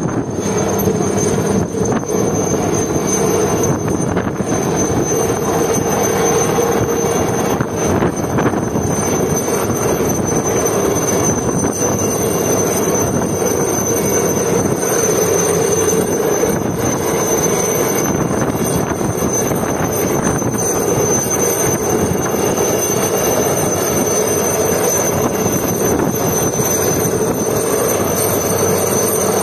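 Helicopter hovering low overhead: a steady rotor and turbine noise with a thin high whine, mixed with surf breaking on rocks.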